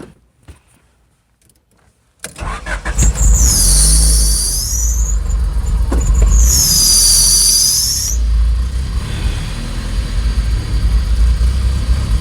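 Honda B20 engine in a Civic starting about two seconds in and then running with a loud low rumble, through a Yonaka exhaust. Two high squeals of about a second and a half each come from the accessory belt just after it catches, a belt that may be too tight.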